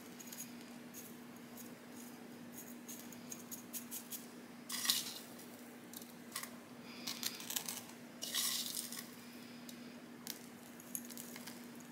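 Gritty cactus potting mix with perlite being pinched by hand and dropped into a small terracotta pot around a cactus cutting: soft crunchy rustles and scattered small clicks, with a few louder rustles around the middle.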